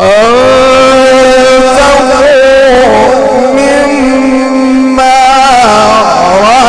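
A man reciting the Quran in the melodic Egyptian mujawwad style, beginning a phrase suddenly and holding one long, loud, ornamented note. The pitch wavers in trills and dips shortly before the end.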